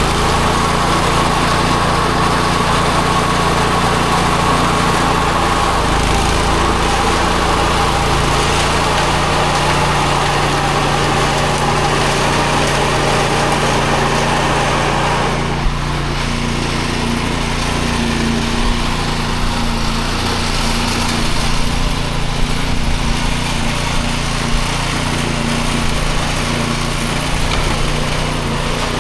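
A small engine running steadily, its tone changing about halfway through.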